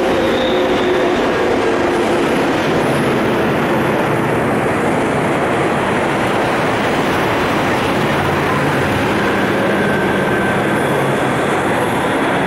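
Rolling-highway freight train, lorries on low-floor rail wagons, running steadily past: a loud, continuous rumble and rush of wheels on rail. A whine fades out over the first couple of seconds.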